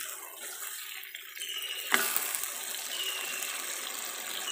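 Curry spice paste sizzling in hot oil in a steel wok over a gas burner, a steady hiss as it fries until the oil separates. A single knock about two seconds in.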